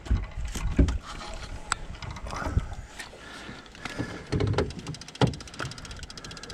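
Wind rumbling on the microphone, with scattered sharp knocks and clicks, and a fast, even ticking that starts about four seconds in.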